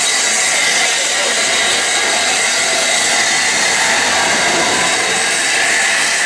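Vintage wooden railway coaches of a steam-hauled train rolling slowly past the platform, giving a steady, loud hissing rush of noise with no clear rhythm.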